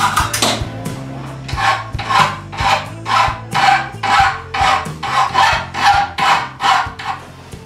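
Flat hand file being drawn across the hacksawn end of a metal rod clamped in a bench vise. It makes rasping strokes at about two a second, about a dozen in a row.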